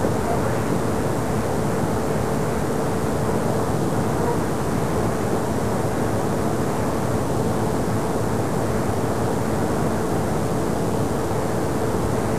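Steady rushing background noise of a room recording, even and unchanging throughout, with a faint steady hum under it.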